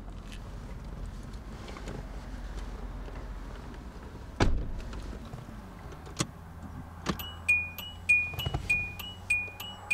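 A car door shutting with a thud, a couple of clicks as the key goes into the ignition, then the car's dashboard warning chime beeping evenly at a little over two beeps a second.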